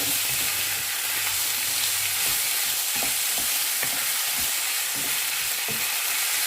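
Pork belly and tomatoes sizzling in oil in a frying pan, a steady hiss, with scattered short scrapes and taps of a utensil stirring them.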